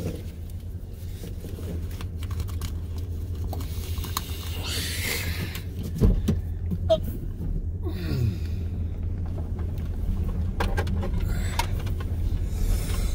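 Truck engine running low and steady, heard from inside the cab while crawling over a rough dirt road, with a loose clicking rattle and knocks as it bumps along; the loudest knock comes about six seconds in.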